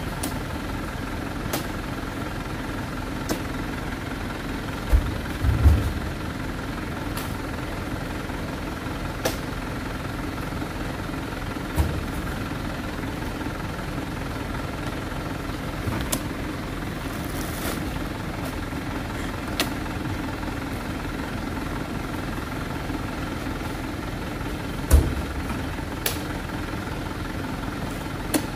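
Mitsubishi Canter HDL 136 PS diesel truck engine idling steadily, with a few heavy thuds as oil palm fruit bunches land in its cargo bed. The loudest thuds come about six seconds in and near the end.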